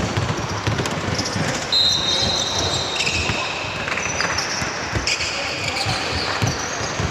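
Basketball game play: a ball bouncing on the court in repeated thuds, with several high squeaks from sneakers on the floor.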